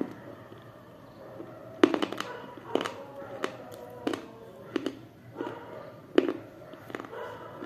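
Close-miked crunching of a thick, totally dry white item being bitten and chewed: sharp crisp cracks about every half second to a second, the loudest about two seconds in and again just past six seconds.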